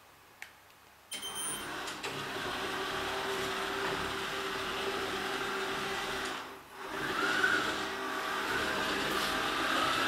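Samsung Navibot SR855 robot vacuum starting up about a second in, just after a short tick, then running with a steady whir and hum of its motors as it heads back to its charging dock. Its sound drops out briefly near seven seconds and comes back with a slowly rising whine.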